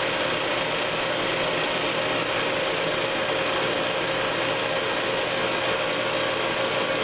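Refrigerant recovery machine (an Appion G5Twin) running steadily near the end of recovery: an even hum with a steady mid-pitched tone over its motor and fan noise.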